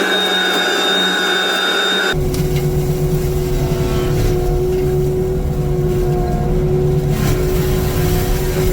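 Heavy diesel machine engine running steadily with a constant whine. About two seconds in the sound changes abruptly to a deep engine rumble with a lower steady tone.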